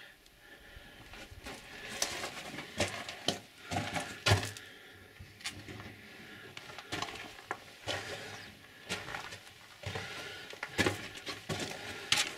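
Footsteps crunching and scraping on the loose rock and gravel floor of a mine tunnel, irregular steps about once a second.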